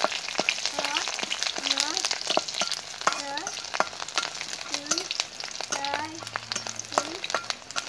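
Potato slices sizzling in hot oil in an iron wok, with a metal spatula scraping and clicking against the pan as it stirs them. Short rising squeaks recur about once a second.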